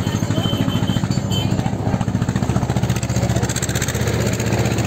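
Helicopter rotor beating with a rapid, even low pulse that grows a little louder toward the end.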